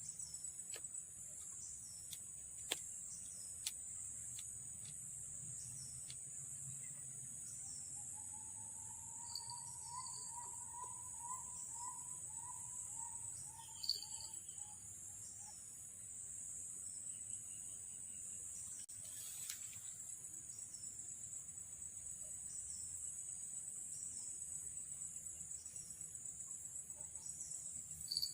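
Steady, high-pitched pulsing chorus of night insects. A few sharp clicks come in the first few seconds, and from about seven seconds in there is a run of a dozen or so quick notes that rise then fall: an unidentified animal call.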